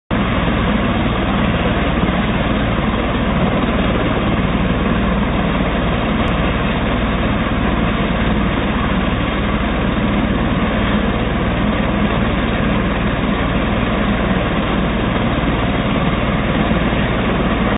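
Helicopter running on the helipad with its main rotor turning: a loud, steady engine and rotor drone.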